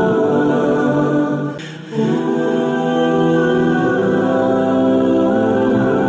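Background music of long held chords, which dips briefly in loudness about a second and a half in.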